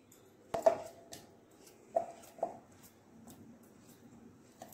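Knife slicing a banana over a steel mixer jar, with a few short knocks of the blade and slices against the metal, about four in all.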